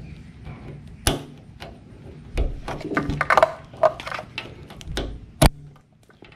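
Fingers working the plastic retaining clip on a motorcycle fuel-line quick-connector: scattered clicks and scraping, with one sharp click about five seconds in.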